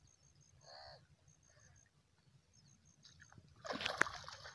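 A hooked fish thrashing and splashing at the water's surface as it is hauled in on a hand line. The splashing starts suddenly about three and a half seconds in, with one sharp slap, the loudest sound, and then dies down.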